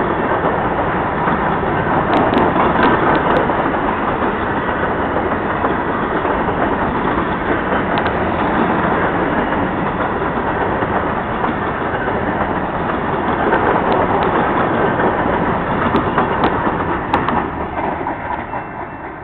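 Covered hopper cars of a freight grain train rolling past: steady wheel-on-rail noise with a few sharp clicks, getting quieter near the end.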